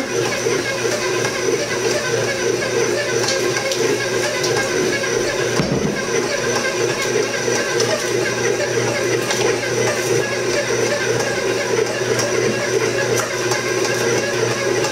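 Electric stand mixer motor running steadily on a low speed, its dough hook churning flour and liquid into pizza dough in a steel bowl.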